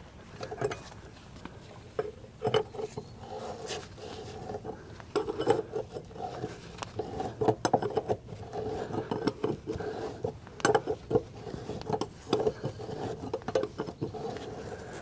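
Wrenches clinking and scraping on the steel bottom bolt of a semi truck's rear suspension air bag as it is worked loose: a string of irregular, short metallic clicks and taps, some ringing briefly.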